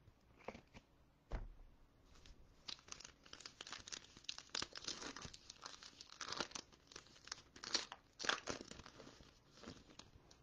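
Foil wrapper of a Phoenix football hobby pack being torn open by hand and crinkled, a dense run of crackling and tearing lasting several seconds. A single soft bump comes about a second in, as the pack is picked up.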